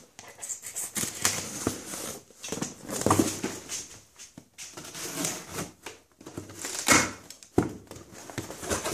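A knife blade slitting the packing tape and cardboard of a mailing box, with irregular scraping and rustling of the flaps and a few sharp knocks near the end as the box is pulled open.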